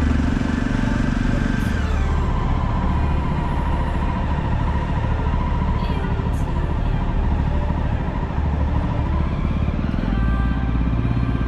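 Jawa motorcycle's single-cylinder engine running on the move. Its pitch drops about two seconds in as the rider eases off, then climbs again near the end as it picks up speed.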